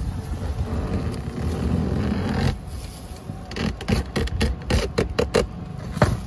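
Blade of a lever-operated coconut cutter forced down through a tender coconut's fibrous husk and shell. About halfway in comes a quick run of crunching, cracking snaps lasting about two seconds, then one sharp crack near the end as the coconut splits in two.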